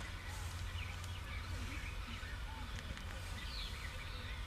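Small birds chirping and whistling faintly in short scattered calls, over a steady low rumble.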